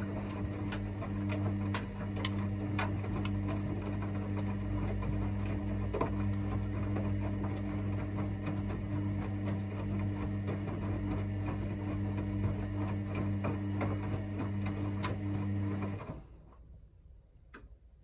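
Hoover DynamicNext washing machine's drum motor turning the drum during the main wash, a steady hum with frequent clicks and knocks from the wet laundry tumbling. The drum stops about sixteen seconds in, leaving a few faint clicks.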